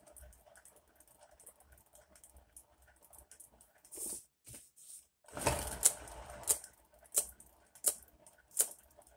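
Round painting board spinning on a turntable: a faint rattle as it turns, a louder scraping spell a little past halfway, then sharp clicks repeating about every 0.7 seconds.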